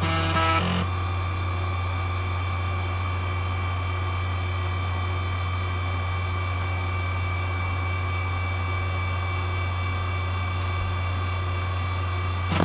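ExcelStor Technology CT210 10.2GB IDE hard drive spinning steadily: a constant low hum with a thin high whine over it. A brief two-note pitched tone sounds in the first second.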